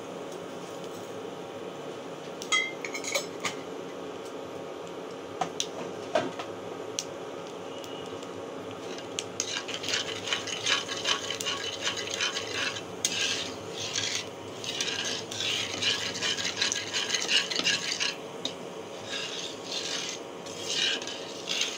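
A steel spatula scraping and stirring around a non-stick kadai of hot oil with nigella seeds, in quick repeated strokes from about halfway through, with a short pause near the end. Earlier there are a few light taps of the spatula on the pan. A steady hum runs underneath.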